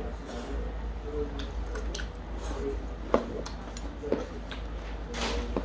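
Stainless steel chopsticks clicking against a metal bowl, two sharp clicks about a second apart, amid small wet eating sounds and a short slurp near the end.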